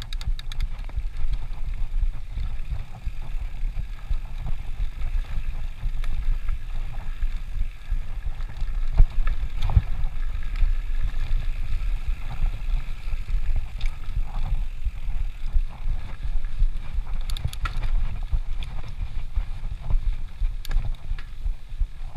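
Mountain bike rolling fast down a dirt singletrack, heard as a constant low rumble and wind buffeting on the rider-mounted camera's microphone, with a few sharp knocks as the bike rattles over bumps.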